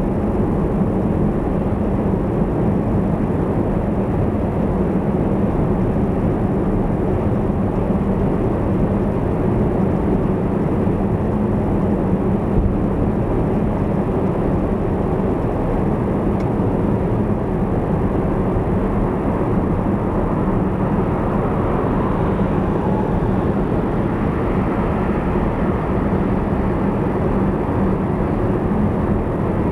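Car driving at expressway speed: steady tyre and road noise with a low, even hum.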